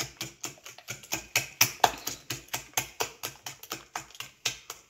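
Wire whisk beating eggs and sugar in a glass dish, the whisk clicking quickly against the glass, about four or five strokes a second. The beating stops shortly before the end.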